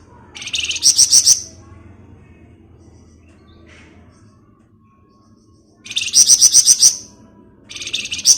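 A songbird kept in Indonesia as 'flamboyan' giving three bursts of rapid chattering notes, about six notes a second, the 'ngebren' song used as a lure call to set other birds singing.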